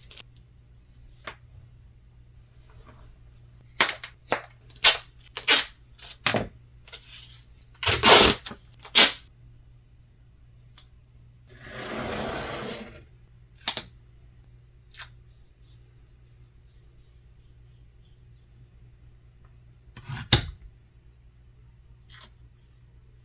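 Duct tape being worked by hand: scattered short, sharp crackles and snaps of tape, and about halfway through a roughly one-second rip of tape being pulled off the roll.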